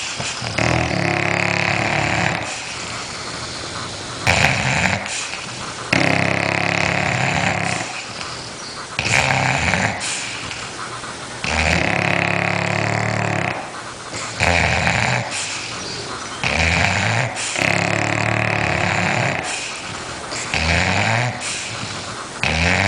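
Two bulldogs snoring in their sleep. The snores come in a steady cycle about every five seconds: a short breath rising in pitch, then a longer, louder snore.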